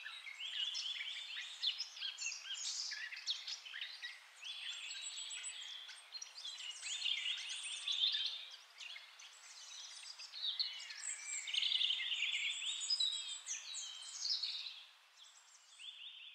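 Several songbirds singing and calling at once, a busy mix of overlapping chirps and quick trills that dies away near the end.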